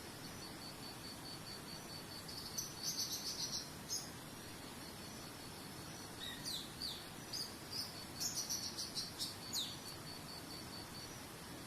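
Small birds chirping in quick runs of short, falling notes, about 3 s in and again from about 6 to 10 s in. Under them runs a steady, pulsing high insect trill, like a cricket, over an even background hiss.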